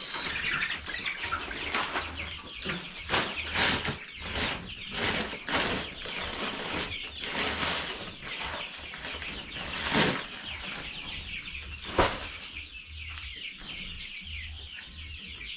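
A flock of chicks peeping busily, with rustling and handling noises and two sharp knocks, one about two-thirds of the way through and a louder one shortly after.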